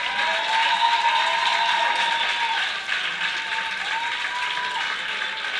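Crowd applauding with overlapping sustained shouts and cheers, loudest in the first couple of seconds.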